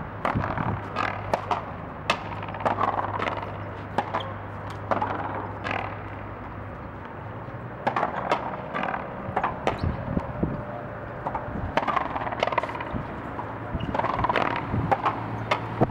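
Racquet frontón rally: sharp cracks of the ball off strung racquets and the front wall, coming irregularly every second or two, over a steady low hum.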